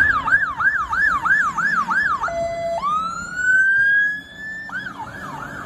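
Siren of a UK fire engine responding on blue lights: a fast repeating yelp, a brief steady low tone about two seconds in, then a slow rising wail, switching back to the fast yelp near the end.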